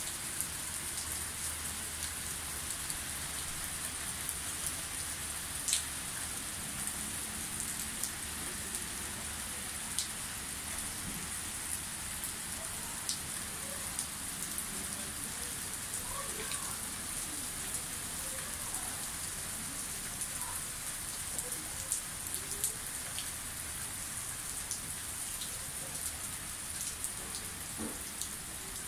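Small hail falling with rain: a steady hiss of pattering, with scattered sharp ticks of hailstones striking the ground.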